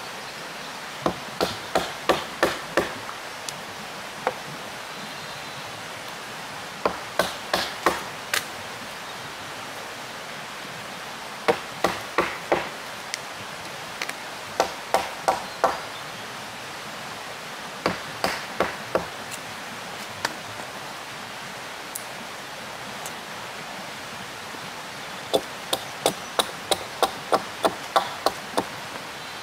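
A hand tool striking wood in bursts of about five to eight quick blows, roughly three a second, with pauses of a few seconds between bursts, and a longer run of blows near the end.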